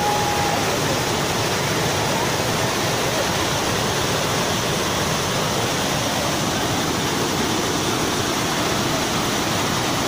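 Waterfall cascade: white water rushing over rocks in a loud, steady, unbroken rush.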